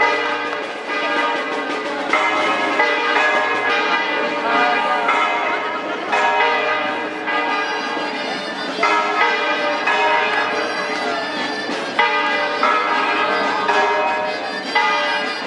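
Church bells ringing a festive peal, mixed with live folk music played for the dancers. Many sustained notes overlap and change every second or two.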